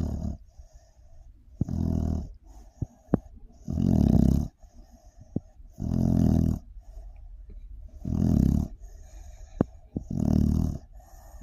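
A sleeping dog snoring with a deep, rattling snore on each breath, about one every two seconds, six in all. A couple of short sharp clicks come between the snores.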